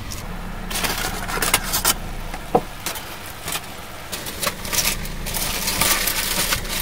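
Hokke chanchan-yaki simmering in a foil tray on a tabletop hot plate: irregular crackling and hissing over a steady low hum.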